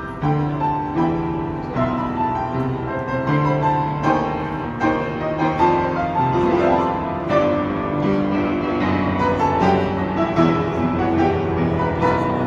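Piano played continuously, a melody over sustained bass notes and chords.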